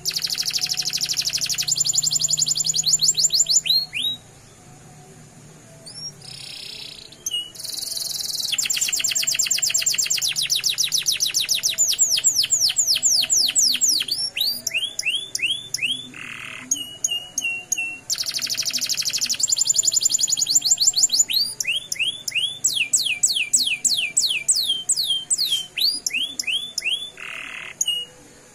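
Domestic canary singing a long rolling song. It goes in fast trills of rapidly repeated notes and runs of falling whistled sweeps, in phrases several seconds long, with a pause about four seconds in and short breaks later.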